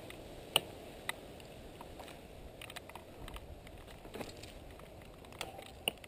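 Mountain bike rolling over a rocky trail: a low steady rumble of tyres with irregular sharp clicks and rattles from the bike, the loudest about half a second in and near the end.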